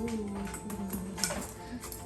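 Background music with a gliding melody, over a few light taps and clicks.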